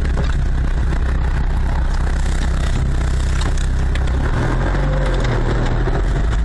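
Car engine and road noise heard from inside the cabin while driving, a steady low hum whose pitch shifts slightly a little past halfway.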